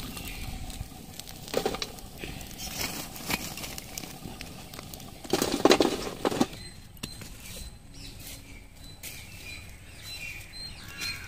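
Burning charcoal embers being scooped with a metal slotted ladle and dropped onto the metal lid of a biryani pot, loading it with coals for dum cooking: scraping and clattering of coals on metal in several bouts, the loudest about five to six and a half seconds in, quieter from about seven seconds on.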